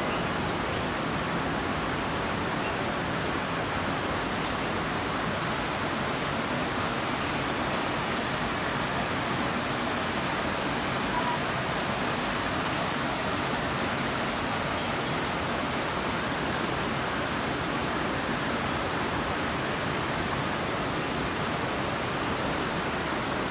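River water rushing over rocks in a steady, unbroken wash of noise.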